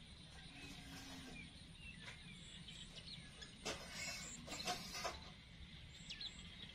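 Faint outdoor ambience: a steady low hum with small, high bird chirps scattered through it, and a short cluster of rustling clicks a little past the middle.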